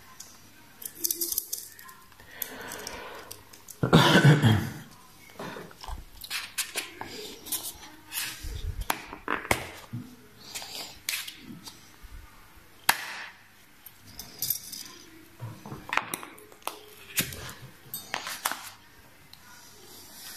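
Scattered handling noises: small clicks, taps and clinks of hands working with small metal parts and tools, with one louder rustling thump about four seconds in.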